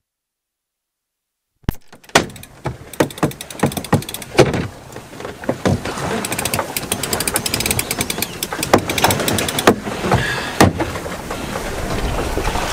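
A small sailboat under way: a steady rush of wind and water with many sharp clicks and knocks, starting after about two seconds of silence.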